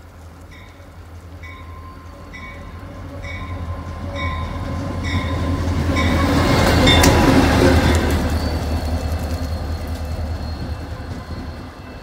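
Norfolk Southern diesel locomotive running light, approaching and passing close. Its engine rumble builds to its loudest about seven seconds in, with wheels clicking over the rails as it goes by, then fades. A bell rings about once a second during the approach.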